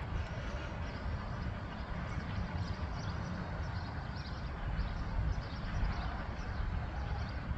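Wind buffeting the phone's microphone: a low, gusty rumble, with faint short high chirps over it.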